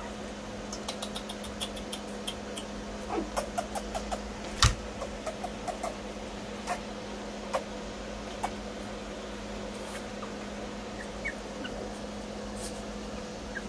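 Brussels griffon puppies giving small, high squeaks and whimpers, mostly a few seconds in, amid scattered light clicks and taps as they move about. There is one sharp knock about four and a half seconds in, all over a steady low hum.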